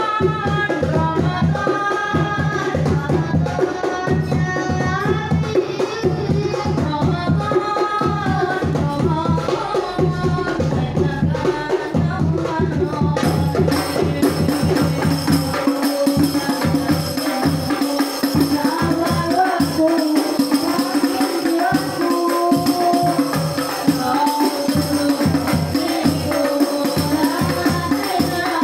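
Sholawat practice on hand drums: a darbuka, rebana frame drums and a bass drum play a fast, steady rhythm while voices sing the melody over it.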